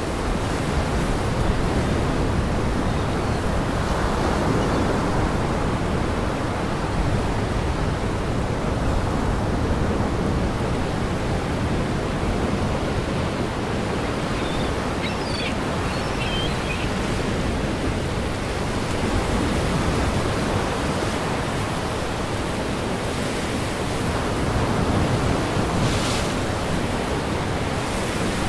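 Steady, unbroken rushing noise of gale wind and waves breaking on the shore, with a few faint high chirps about halfway through.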